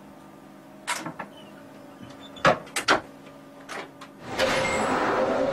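Sharp clicks and knocks, about six of them, over the steady electrical hum of a London Underground Jubilee line train cab. About four seconds in, a louder steady rushing noise with a hum takes over.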